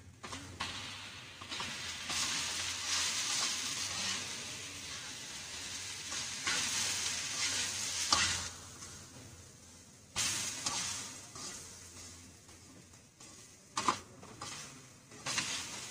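Washed leftover rice frying in hot oil in a wok, sizzling loudly while a spatula stirs and scrapes it. The sizzle drops about halfway through and flares up again about ten seconds in, then fades.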